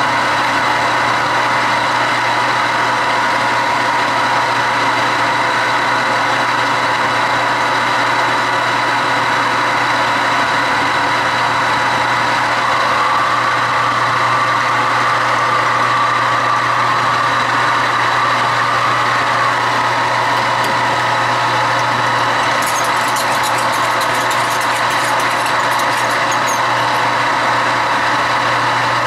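Metal lathe running steadily with a continuous motor hum. Partway through, a higher, brighter tone joins for several seconds, and light high-pitched ticks follow near the end.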